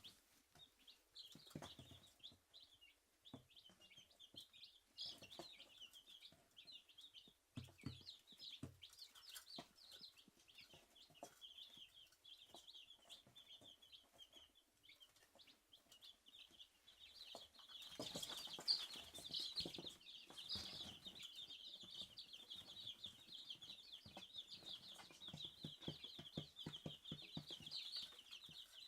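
Three-day-old Dominique chicks peeping softly and continuously, many quick high chirps overlapping. The peeping grows louder and busier about two-thirds of the way through.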